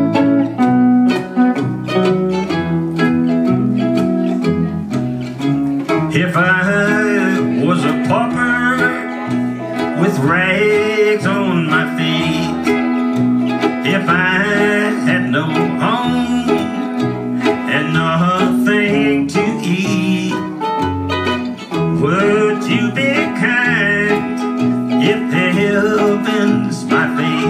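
Country string trio playing: archtop electric guitar, mandolin and plucked upright bass, with the bass stepping out a steady beat under a wavering lead melody.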